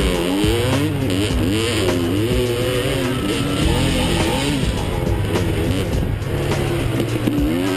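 Honda CR250 two-stroke single-cylinder dirt bike engine revving up and down under load on a steep dirt climb, its pitch rising and falling about once or twice a second as the throttle works, over constant wind and rough-ground noise.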